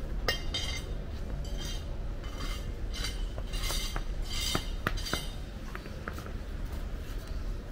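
Short scrapes and sharp clinks of hard objects against stone paving, one or two a second, dying away after about five seconds.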